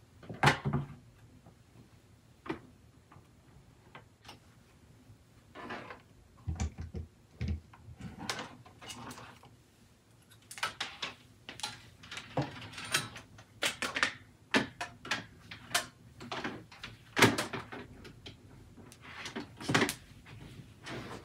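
Irregular knocks, clicks and rustling of a single-serve coffee maker, a record player and their power cords being lifted, set down and plugged in on a wooden dresser. The loudest knocks come about half a second in and again about three-quarters of the way through.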